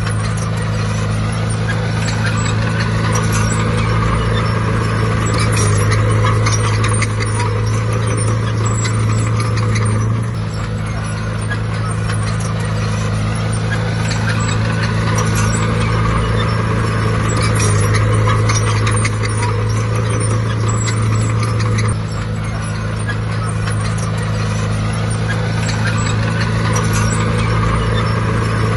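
Heavy diesel earthmoving machinery running steadily under load, with metallic clatter and squeaks over the engine drone. The engine note eases off briefly about ten seconds in and again about twenty-two seconds in.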